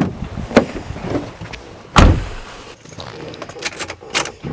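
A car door is shut with one heavy thump about two seconds in, among smaller clicks and knocks as someone gets into the car.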